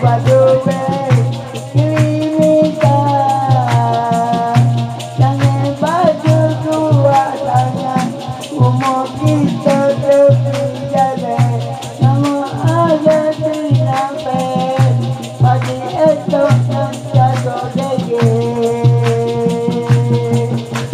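Dikir barat-style music: a man singing a melody through a microphone and PA, over a steady drum beat and shaken maracas.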